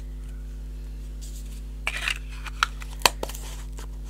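Craft supplies being handled on a table: a few short rustles and clicks around two seconds in and a sharper click about three seconds in, over a steady low electrical hum.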